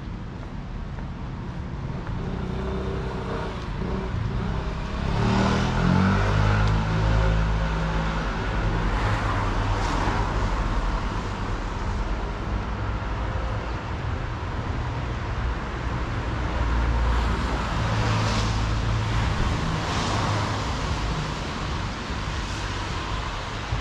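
Street traffic: cars driving past on the adjacent road, a steady low engine and tyre rumble that swells as a vehicle passes about five seconds in and again near the end.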